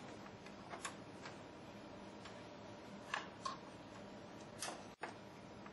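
A few faint, irregular clicks and light knocks over a steady low hiss: cables and their plastic fittings being handled at a telecom equipment cabinet.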